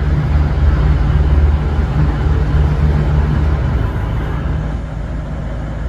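V/Line VLocity diesel multiple unit's engines running with a steady low hum and rumble at the platform. The hum eases off near the end.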